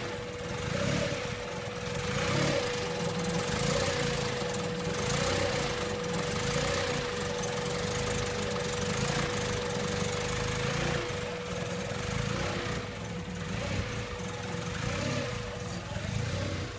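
Honda B16A four-cylinder engine idling roughly, swelling and easing about every second and a half, with a steady thin whine over it. The owner suspects a misfire; the idle air control valve has been cleaned.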